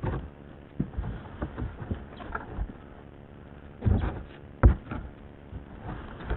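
Irregular knocks and thumps of things being handled, with a few louder knocks about two-thirds of the way through and one sharp thump just after.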